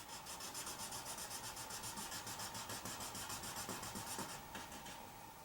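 Colouring a picture yellow on paper: faint, rapid back-and-forth scribbling strokes, about seven or eight a second, that stop about four and a half seconds in.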